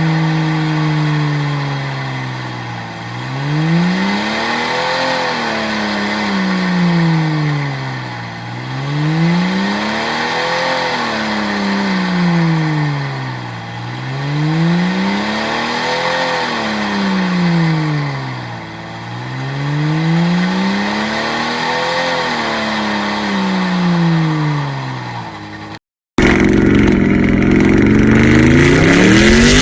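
Jeep engine revving up and down in slow, even cycles, its pitch rising and falling back about every five and a half seconds. Near the end it cuts off abruptly, and a different engine running at higher, steadier revs comes in.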